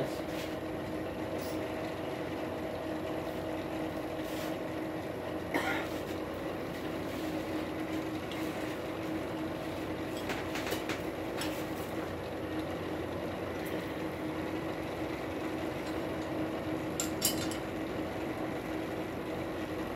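Steady humming drone of the forge running, with a few light metal clinks as tongs and hot steel are set on the anvil.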